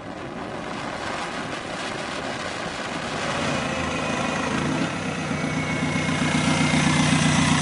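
Die Moto biodiesel motorcycle's 2.0-litre BMW four-cylinder turbodiesel engine running, its low steady hum growing louder as the bike draws near.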